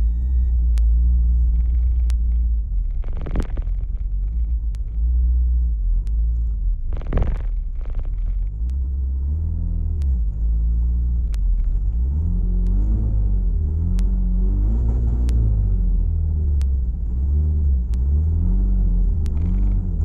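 Turbocharged DSM's engine running under way on a test drive, its pitch rising and falling again and again in the second half as it revs and shifts. Two short rushing bursts come about 3 and 7 seconds in.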